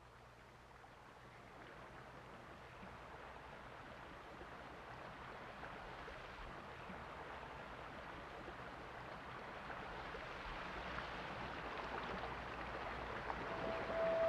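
A steady rush of water that slowly swells in level, over a faint low hum, with a single held musical tone coming in near the end.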